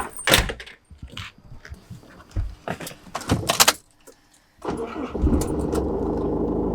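Clicks, knocks and jangling keys, then a car engine starts abruptly about two-thirds of the way in and runs steadily with a low rumble.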